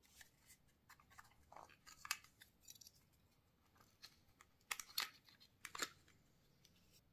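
Faint scraping and clicking of a plastic air-conditioner remote control being handled for disassembly, with a few sharper clicks about two seconds in and again near five and six seconds.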